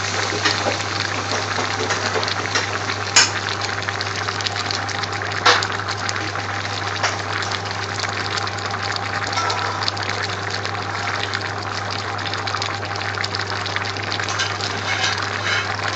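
A large pot of chopped onions, carrots and peppers boiling hard, a steady bubbling hiss with many small pops, as the vegetables cook down. Two sharper pops come about three and five and a half seconds in, over a steady low hum.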